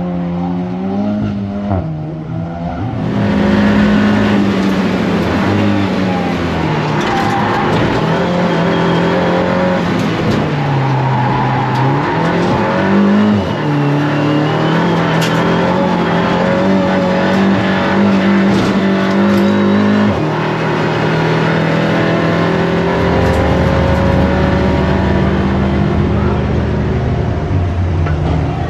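Audi RS 3 LMS TCR race car's turbocharged 2.0 TFSI four-cylinder engine running hard on track, its revs rising and falling through gear changes, then holding steadier for the last several seconds.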